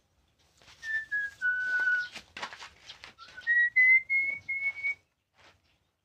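A person whistling a short tune in clear held notes: three notes stepping down, then a pause and four notes stepping up. A few short knocks of handling sound come in between.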